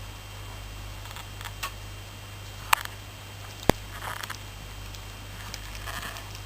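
A sleeping Shiba Inu snoring faintly: two soft rasping breaths about two seconds apart in the second half, over a steady low electrical hum. A few sharp clicks in the middle, two of them a second apart, are the loudest sounds.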